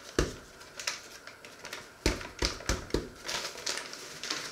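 Paper flour bag rustling and crinkling as it is handled. Several sharp knocks come through it: one just after the start and four in quick succession between about two and three seconds in.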